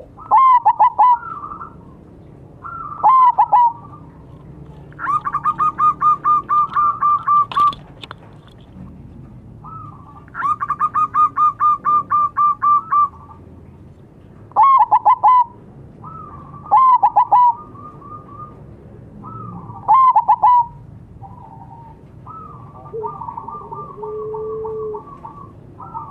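Zebra doves (perkutut) calling: loud bursts of rapid, staccato cooing notes every few seconds. Most bursts are short phrases, but two are long runs of about ten notes. A fainter series of notes follows near the end.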